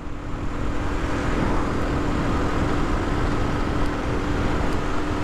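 Aprilia RS 125's single-cylinder four-stroke engine running at a steady cruise, one constant engine note held without revving, under a steady rush of wind and road noise.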